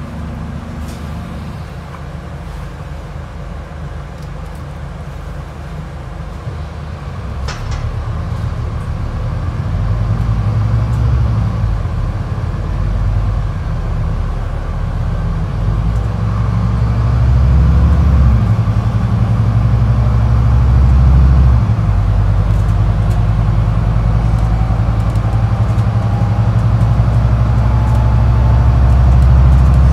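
Scania N250UD double-decker bus's diesel engine heard from the upper deck as the bus pulls away and gathers speed. It grows louder, and the engine note dips and rises again with gear changes, with a faint rising whine near the end.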